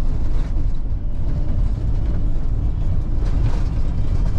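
Steady low rumble of a Mercedes-Benz Sprinter 415 motorhome on the move, heard from inside the cab: engine and road noise while driving.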